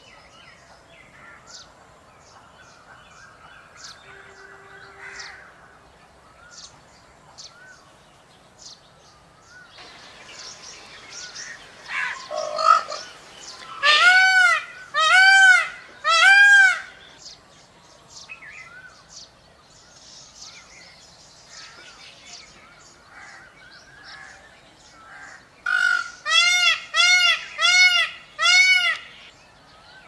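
Indian peafowl (peacock) calling loudly in two series of rising-and-falling calls: three about halfway through and about five in quick succession near the end. Small birds chirp faintly in between.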